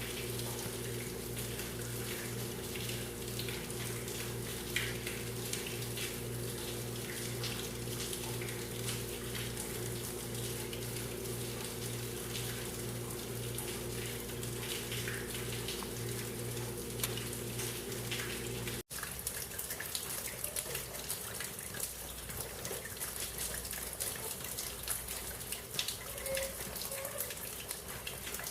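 Rain falling on leaves: a steady hiss with a dense patter of small drops. A steady low hum underneath stops abruptly about two-thirds of the way in.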